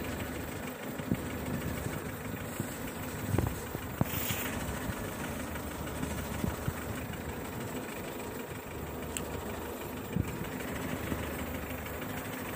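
Rustling and crunching of tall grass and weeds as someone wades through the brush, with scattered knocks and a few sharper snaps over a steady low hum.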